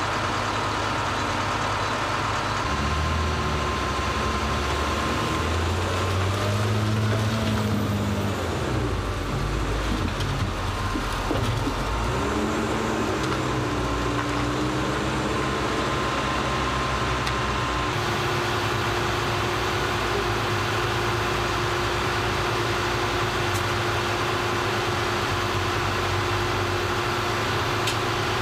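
Diesel engines of heavy sugar beet loading machinery running steadily, with the revs rising and falling a few times in the first half. The steady tone of the machinery changes about two-thirds of the way through.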